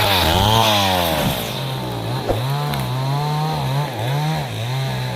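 Stihl two-stroke chainsaw running while cutting teak wood, its engine speed rising and falling about once a second.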